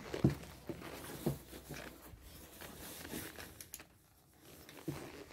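Faint, scattered crunches and taps of footsteps on broken asphalt rubble in a small concrete room, with a brief near-silent pause about four seconds in.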